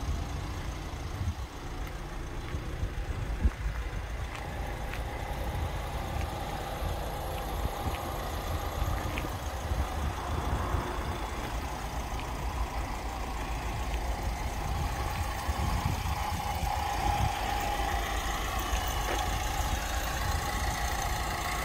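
Ford Transit Connect's 1.8 TDCi diesel engine idling steadily with a low rumble, a little louder in the second half.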